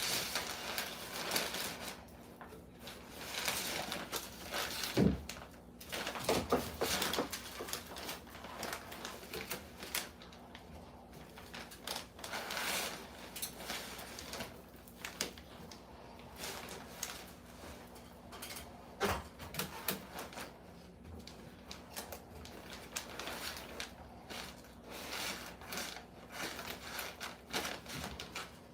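Irregular scraping, rustling and clattering of hand work with tools and materials in a small room, with a few sharper knocks.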